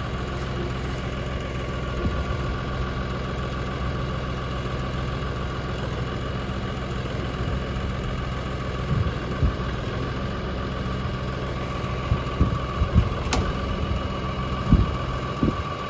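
LS tractor's diesel engine running steadily, with several short knocks in the second half.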